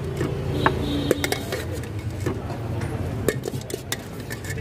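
Metal spoon clinking and scraping against a steel bowl as a spiced puffed-rice mixture is scooped out, in irregular sharp clicks over a steady low background hum.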